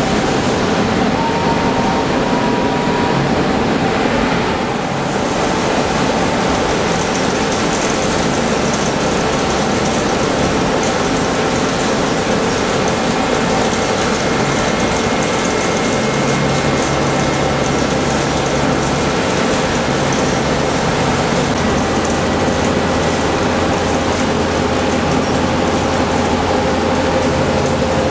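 CNC machining center heavy-milling a tall steel workpiece: a steady, dense cutting noise with a few held tones from the spindle and cutter, and a lower hum setting in about halfway through.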